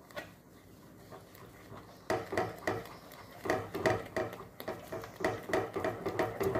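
A wooden spatula stirring thick custard and bread crumbs in a kadhai, in quick repeated strokes at about three a second that begin about two seconds in after a quieter start.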